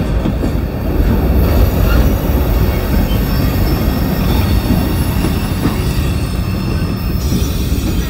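Freight train tank cars rolling past at close range: steel wheels running on the rails with a steady rumble and thin, high squealing tones, as the last car goes by and moves away.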